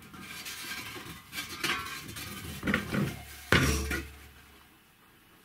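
A hollow red steel tank being handled on a wooden workbench: it scrapes and clatters as it is rolled and tipped upright. About three and a half seconds in it knocks loudly, and its body rings briefly.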